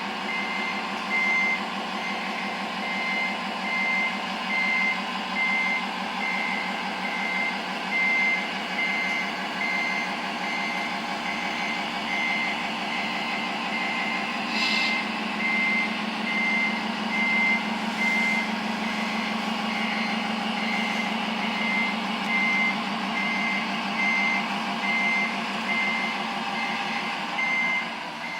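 Reversing beeper of an RC model Scania R620 truck's Servonaut sound module, a high tone pulsing on and off at an even pace, over the module's simulated truck engine running steadily.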